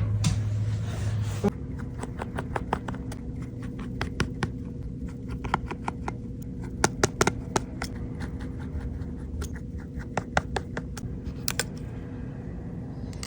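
Scattered light clicks and scratches of small tools working on an iPhone's screws and parts during a teardown, over a steady low hum. A louder low hum cuts off about a second and a half in.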